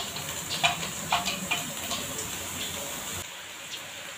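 Cooking at a wok on a gas stove: light clicks and pops over a steady hiss, the clicks thinning out after about two seconds and the hiss dropping a little near the end.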